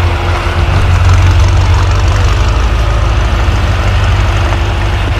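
BMW M5 F90's twin-turbo 4.4-litre V8, tuned and fitted with a SuperSprint exhaust, idling steadily with a low rumble.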